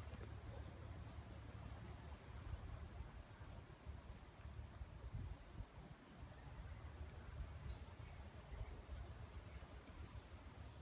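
Outdoor ambience: faint, high, thin chirps repeating about once a second, with one longer high note about six seconds in, over a low steady rumble.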